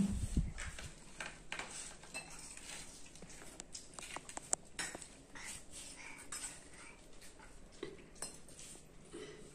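Eating by hand from steel plates: scattered light clinks and taps of steel plates, bowls and tumblers, with hands mixing rice. A dull thump comes right at the start.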